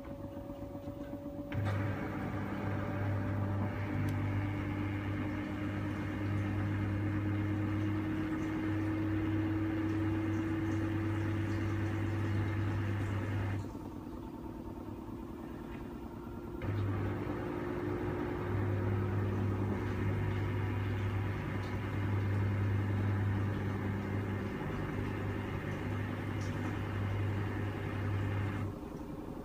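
LG TurboWash front-loading washing machine in its spinning spray rinse: the drum turns with a motor tone slowly rising in pitch, while a pump hums and drives water through the spray nozzle. The pump starts about a second and a half in, cuts out for about three seconds midway, and stops again near the end.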